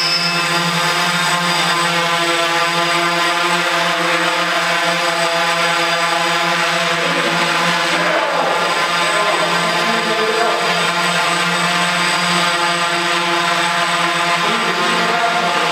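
Quadcopter's propellers buzzing steadily in flight, one held pitch with many overtones. The pitch wavers roughly halfway through and again near the end as the rotors change speed while it manoeuvres.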